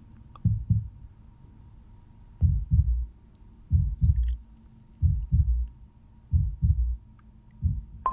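A slow heartbeat sound: paired low thumps, lub-dub, repeating about every 1.3 seconds, with one longer gap near the start.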